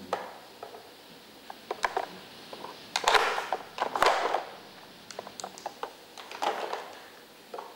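A dog working a plastic treat-puzzle board with its nose and paws: scattered clicks and knocks as the plastic drawers slide and the cone pieces are moved, with louder scraping bursts about three and four seconds in.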